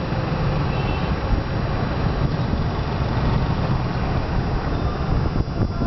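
Street traffic passing close by: small motorbike engines and car engines with tyre noise, blended into one steady rumble.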